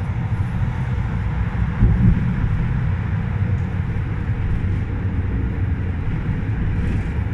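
Steady running noise of an SGP E1 tram under way, heard from inside the passenger car: a low rumble of wheels on rails and running gear, with one louder thump about two seconds in.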